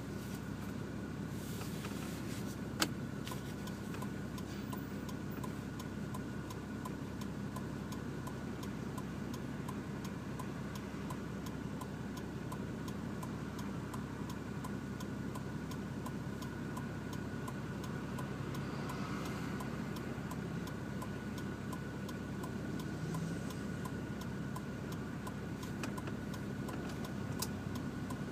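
Nissan Patrol GQ's 2.8-litre RD28 turbo-diesel straight-six idling steadily, heard from inside the cab through a 3-inch exhaust with no mufflers. A light, regular ticking runs over it.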